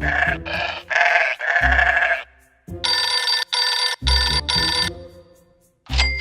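Cartoon background music: a run of short, separate chord stabs over bass notes, each lasting under a second, with brief gaps between them.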